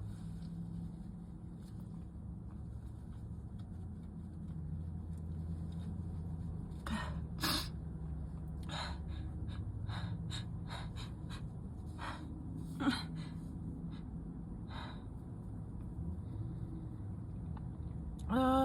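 A woman's sneezing fit from a cold or allergies: two sneezes, one about seven seconds in and one about thirteen seconds in, with short breathy sounds between them and a voiced gasp near the end.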